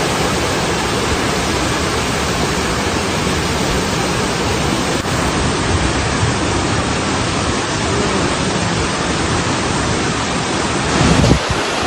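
Loud, steady rushing of floodwater, a dense hiss of fast-flowing water with no let-up.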